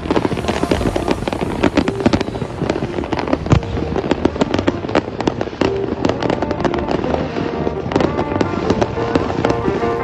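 Many fireworks going off at once: a dense, unbroken stream of pops, cracks and bangs, with music underneath.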